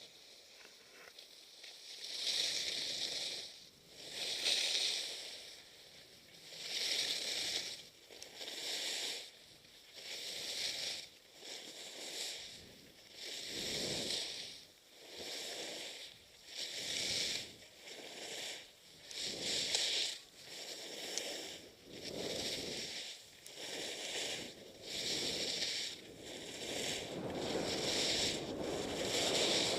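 Skis scraping and hissing across snow in a steady series of turns, one swish about every one and a half seconds. Wind noise on the microphone builds toward the end as speed picks up.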